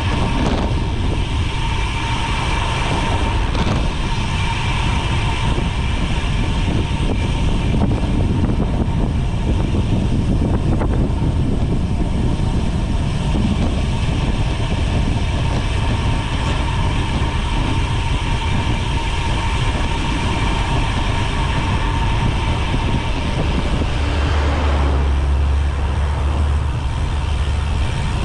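Wind rushing over the microphone and road-bike tyres humming on the road while riding, with a faint steady whine. A heavier low rumble comes in for a few seconds near the end.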